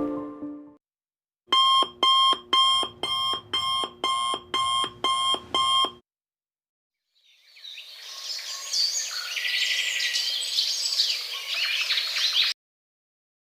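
Digital alarm clock beeping, about ten evenly spaced electronic beeps at a little over two a second, then stopping. After a pause, a bed of bird chirps fades in and cuts off suddenly.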